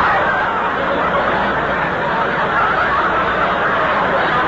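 Live studio audience laughing steadily on a 1940s radio broadcast recording.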